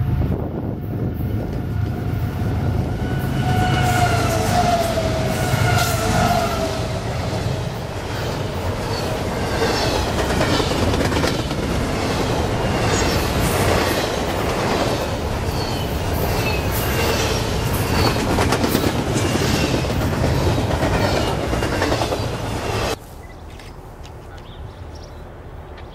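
CSX double-stack intermodal freight train passing close by. The diesel locomotives rumble past, followed by a long run of container well cars clattering over the rail joints with some high wheel squeal. The sound cuts off suddenly near the end.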